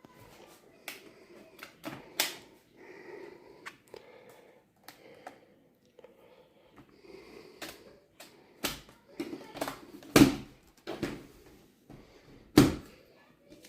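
Irregular clicks and knocks of a plastic laptop being handled, with two sharper knocks near the end.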